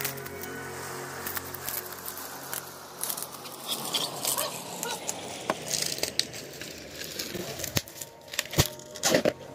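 Plastic bubble-wrap packaging and tape being pulled and torn off by hand, with crinkling and scattered clicks, then a few sharp knocks near the end as a hard pull jolts the phone that is recording. Background music fades out at the start.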